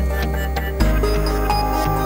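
Instrumental background music: sustained notes over a deep bass line that steps to a new note just under a second in.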